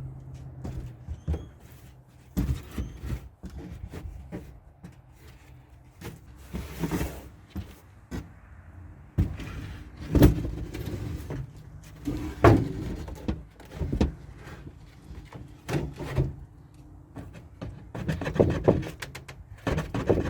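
A wooden shelf board being worked into the back of a pickup's extended cab, with irregular knocks, thuds and scrapes as it bumps against the cab interior. The board does not fit as it is.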